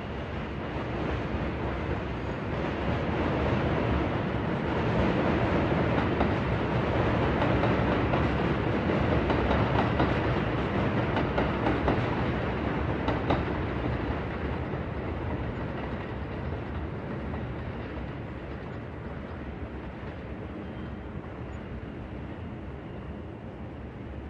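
A train passing by: a wide rumble that builds over the first few seconds, stays loud with a few faint clicks, then fades away through the second half.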